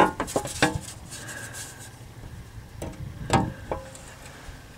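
Steel transmission pan knocking and rubbing as it is worked up into place against the transmission case. A quick run of light clinks comes at the start and a few more knocks about three seconds in, with faint scraping between.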